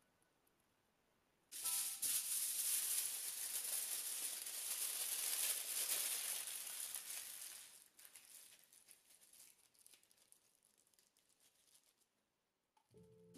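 Aluminium foil crinkling and crackling as hands crumple it closed into a parcel. It is loud and dense for about six seconds, then thins to a few faint crackles.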